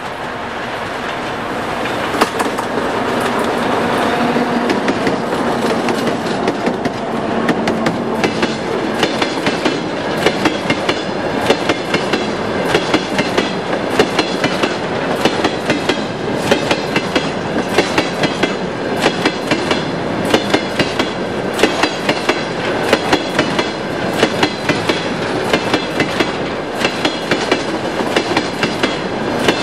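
Freight train of tank wagons rolling past at close range, its wheels clacking over the rail joints in a steady, repeating rhythm over a continuous rumble. The sound grows louder over the first few seconds.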